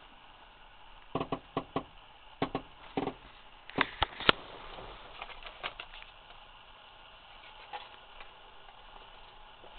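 Handling noise: a run of sharp clicks and knocks in the first half, then only a low, even background. No engine is heard running.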